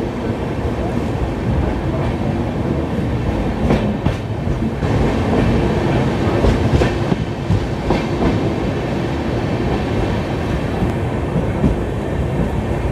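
Passenger express train running on the track, heard from an open coach door: a steady loud rumble of the wheels and coaches, with a few sharp clacks over the rail joints around the middle.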